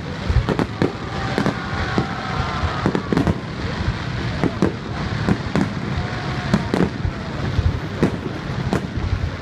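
Aerial fireworks display: shells bursting in a rapid, irregular barrage of bangs, about two or three a second, over a constant background haze of noise.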